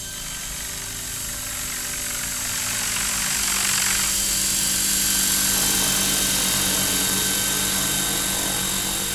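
Electric Maxi Joker RC helicopter hovering close overhead: a steady high motor and gear whine over the swish of the spinning rotor blades. It grows louder over the first few seconds as the helicopter comes in closer, then eases a little.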